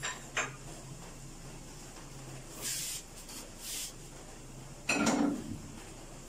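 Chicken tikka karahi cooking on low heat in a glass-lidded frying pan, at the dum stage with a little yogurt water left: faint sizzling with occasional short spits over a steady low hum. A louder knock comes about five seconds in.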